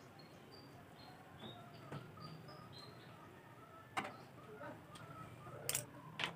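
Faint birds chirping in a string of short high notes, with a few sharp clicks and knocks about four seconds in and again near the end.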